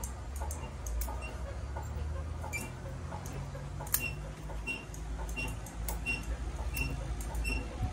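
Bonsai scissors snipping again and again as leaves are trimmed off a bonsai: short, sharp, crisp cuts about every half second, over a low steady rumble.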